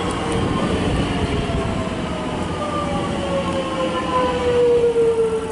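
Alstom X'Trapolis 100 electric train pulling into the platform and slowing to a stop. Its motor whine falls steadily in pitch as it brakes, over the rumble of the wheels on the track.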